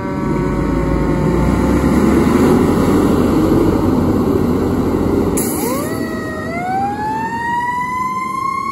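Fire engine pulling away under power, its diesel engine loud, while a siren winds down. About five and a half seconds in, the siren winds back up in one long rising wail that levels off near the end.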